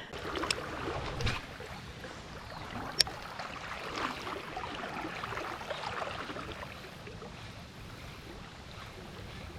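Shallow river water running and splashing, with a few light knocks early on and one sharp click about three seconds in.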